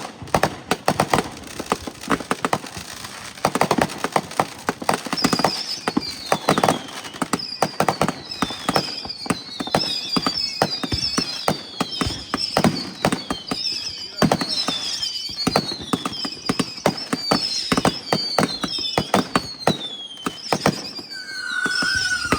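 Fireworks going off: rapid cracking and popping throughout, and from about five seconds in a string of high whistles, each falling in pitch, one after another. A lower falling whistle comes in near the end.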